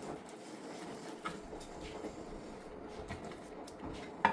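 Quiet kitchen room tone with a few faint clicks and taps as a knife slices through raw chicken breast on a plastic cutting board, with a sharper tap near the end.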